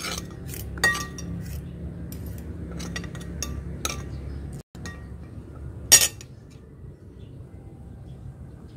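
Metal fork and spoon clinking against a ceramic plate: a few separate clinks, some with a short ring, the loudest about six seconds in.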